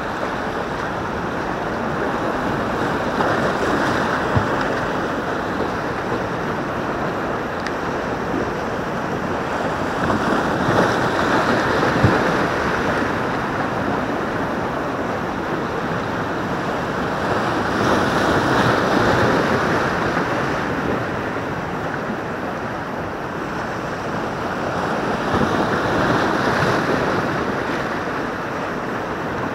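Sea waves breaking and washing on a rocky shore, a steady rush that swells louder every several seconds as each wave comes in, with wind buffeting the microphone.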